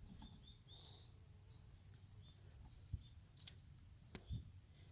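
Outdoor garden ambience: insects trilling in very high-pitched bursts about a second long, repeating, with short bird chirps and a couple of faint clicks.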